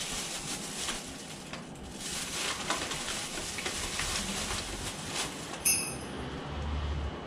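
Thin plastic carrier bag rustling as it is hooked over a door handle, over a steady background hiss. A short, sharp ringing sound comes about six seconds in.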